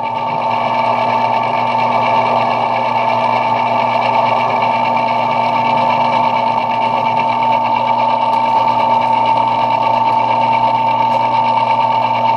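Metal lathe running steadily while turning brass stock down to size, with a constant high whine over a steady motor hum.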